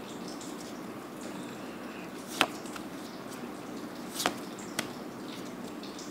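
Magic: The Gathering cards flipped through by hand: three sharp card snaps as cards are slid off the stack, over a steady background hiss.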